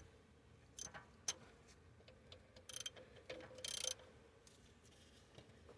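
Socket ratchet clicking faintly in short runs while bolts are worked loose to remove an alternator: a couple of single clicks first, then two quick runs of ratcheting around three seconds in.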